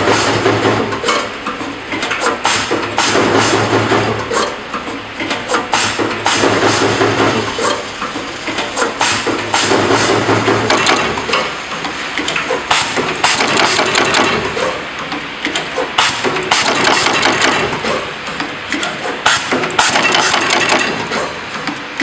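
Automatic wire stripping, twisting and soldering machine running: a rapid, irregular clatter of clicks and knocks from its mechanisms, with a low hum that comes and goes every few seconds.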